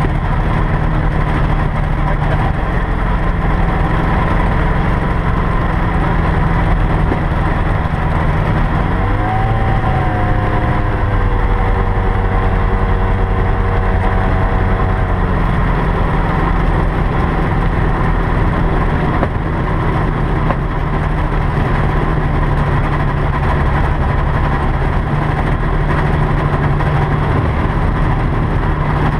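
Light aircraft's propeller engine running, heard from inside the cockpit. Its pitch rises about nine seconds in, holds for several seconds, then settles back.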